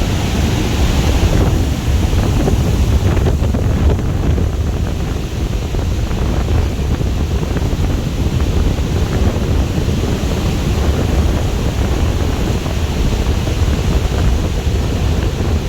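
Strong wind blowing across the microphone: a steady, loud, low rumble.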